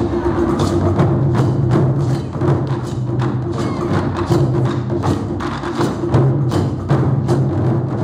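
Taiko ensemble drumming: many players striking barrel-shaped chū-daiko drums with wooden bachi sticks in a fast, dense stream of strokes over deep drum tones.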